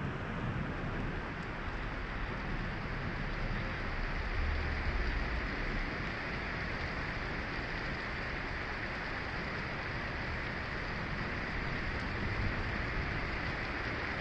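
Heavy rain falling steadily during a thunderstorm, an even hiss of rain on pavement and surfaces, with a brief low rumble about four to five seconds in.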